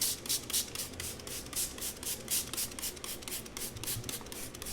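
Rapid, even scrubbing strokes, about six a second, as the bare portable-bandsaw casting is cleaned with dish soap and citrus cleaner.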